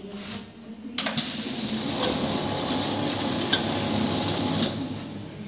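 Bath-mat rolling machine running a cycle: its belt conveyor and rollers start abruptly about a second in and run with a steady high whine and scattered ticks, dying away shortly before the end.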